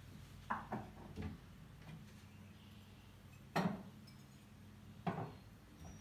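Mugs and cups being set down in a wooden kitchen cupboard: a handful of short clinks and knocks, the loudest about three and a half seconds in.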